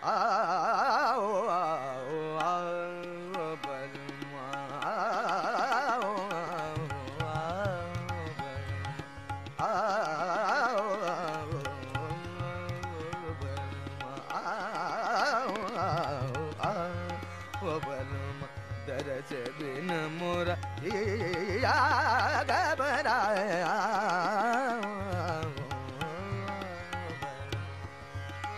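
Indian classical-style background music: a melody full of sliding, wavering ornaments, in phrases that restart about every five seconds, over sustained low notes.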